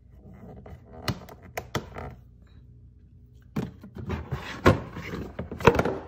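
The plastic water tank tray of a COMFYHOME bladeless evaporative cooler being handled and slid out: a few light knocks about a second in, then a clatter of plastic knocks and thuds, loudest near the end. The cooler hums steadily underneath.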